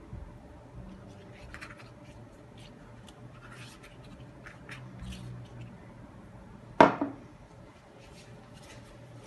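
Pastry brush rasping and dabbing over a thin, crinkly yufka pastry sheet as oil is spread on it, in short scattered strokes. About seven seconds in there is one sharp loud knock with a quick second hit.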